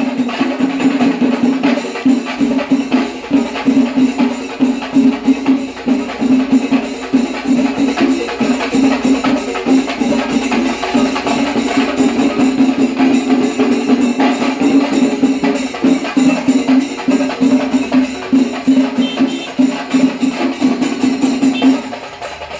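Percussion music: a steady run of fast drum strokes and cymbal-like hits over a held low tone, falling away shortly before the end.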